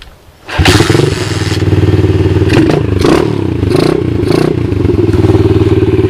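A pit bike's Lifan single-cylinder four-stroke engine starts about half a second in and keeps running at idle, its revs wavering a little in the middle.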